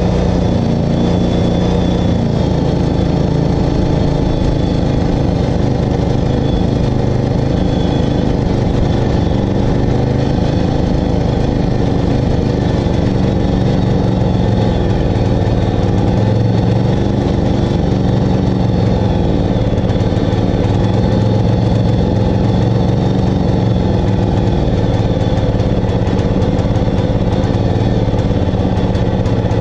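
John Deere walk-behind lawn mower's single-cylinder engine running steadily with no load, its speed wavering slightly now and then: a roadside-found mower that has been brought back to life.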